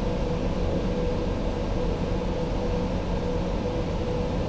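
Steady ventilation hum, with a faint steady tone running through it and no changes.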